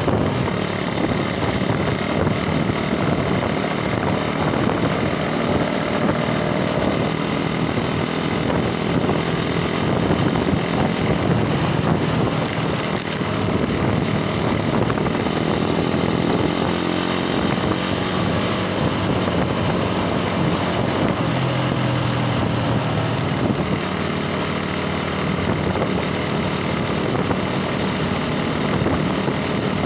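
Suzuki Raider underbone motorcycle riding along a street: its engine runs under heavy wind rush over the microphone, and the engine note rises and falls a few times with the throttle.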